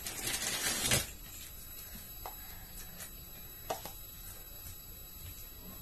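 A man hisses in sharply through his lips for about a second from the heat of very spicy instant noodles. Then come a few light clicks of wooden chopsticks against the paper noodle cup.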